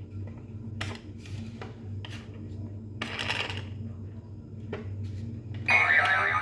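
Light plastic clicks and a brief rattle from a battery-powered pop-up panda toy being handled, over a low steady hum. Near the end the toy gives a short, louder funny sound effect with a wavering, voice-like pitch.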